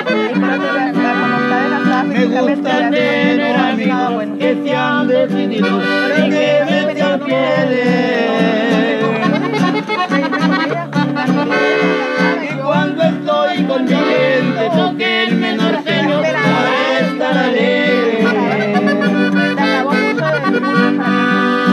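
Live music on a diatonic button accordion, with a strummed string instrument playing a steady bass-and-chord accompaniment.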